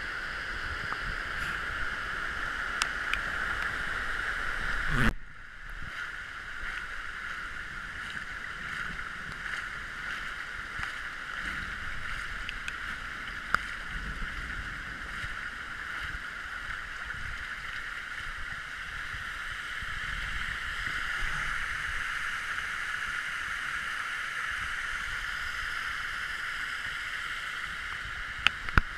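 Steady rush of muddy floodwater running through a village street, with scattered sharp ticks and a single loud bump about five seconds in.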